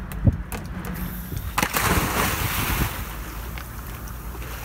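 A scuba diver in full gear jumping feet-first off a sailboat's stern into the sea. There is a sudden splash about a second and a half in, then a second or so of churning, fizzing water that dies away, with a short knock near the start.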